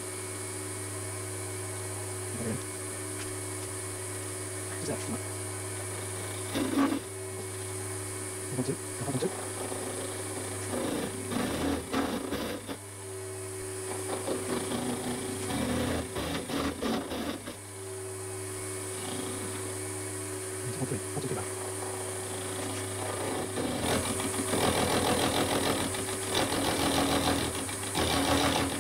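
Milling machine running with its cutter nibbling into a cast iron piston: a steady motor hum under irregular cutting chatter and scraping, which grows busier and louder towards the end.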